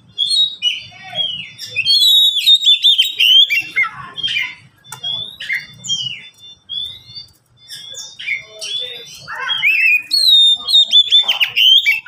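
Caged Oriental magpie-robins (kacer) singing back and forth: varied whistled phrases full of quick falling notes, loudest in bursts about two to three and a half seconds in and again near the end.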